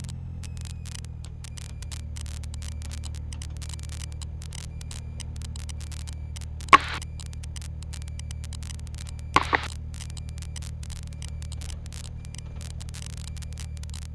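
Cessna Skyhawk's piston engine and propeller running at taxi power, heard as a steady low drone with static crackle over it. Two sharp knocks stand out, one about seven seconds in and a quick double one a couple of seconds later.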